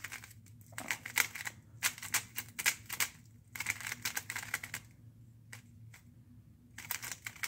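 Magnetic Valk 3 Elite M 3x3 speedcube being turned fast by hand on its first turns: quick runs of plastic clicking and clacking layer turns, thinning to a few scattered clicks for a couple of seconds in the second half before the fast turning resumes.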